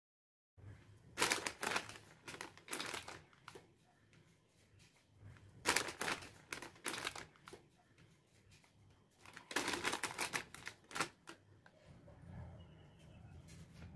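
Plastic potato chip packet crinkling as it is handled, in three bouts of rustling with quieter rustles between.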